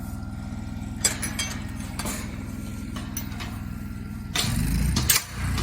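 A vehicle engine idling steadily, with a few sharp metal clicks from a gate latch being worked. A louder rumble rises near the end and stops abruptly.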